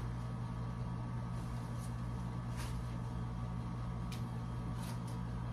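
A steady low electric hum, with a few faint short clicks or rustles.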